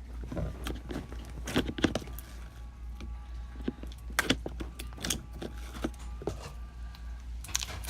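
Clear slime being squished and poked by hand, making irregular short wet clicks and pops.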